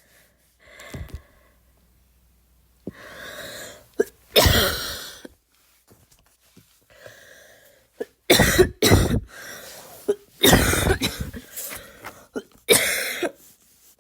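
A girl's forced, harsh barking coughs: about five loud single coughs, with audible breaths drawn in between them.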